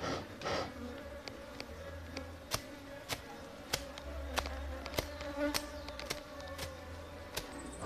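A swarm of agitated honeybees buzzing steadily around the hives. From about two and a half seconds in, a machete blade cutting grass makes sharp, irregular clicks.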